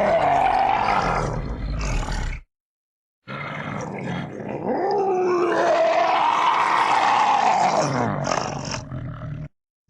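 Custom raccoon sound effect: growling, groaning animal-like calls with a wavering pitch. A first call cuts off about two seconds in, and after a short silence a longer call runs about six seconds before stopping abruptly.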